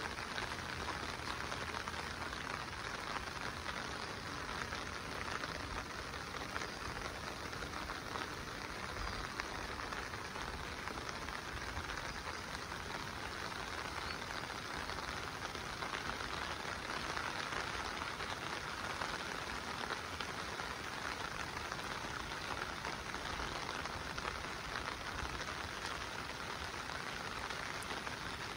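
Steady monsoon rain falling, an even hiss of drops with no let-up.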